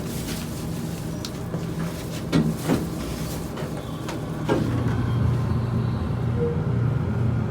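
Dover hydraulic elevator in service: a few knocks, then about four and a half seconds in a louder steady low hum sets in as the car's drive starts running.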